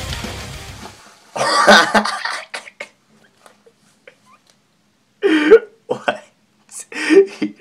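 Loud rock music fading out over the first second, then a man's short bursts of laughter, breathy and separated by pauses.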